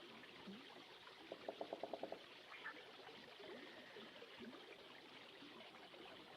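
Faint ambient recording of a flowing stream, a steady trickling wash. About a second and a half in, a brief burst of rapid pulses, roughly ten a second, stands out for under a second.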